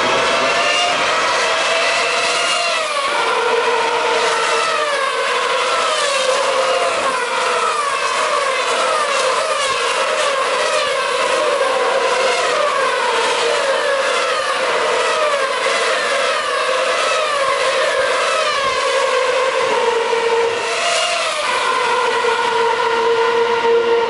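Several 2013 Formula 1 cars with 2.4-litre V8 engines running at high revs as they pass one after another down the straight. Their engine notes overlap, and the pitch falls again and again as car after car goes by.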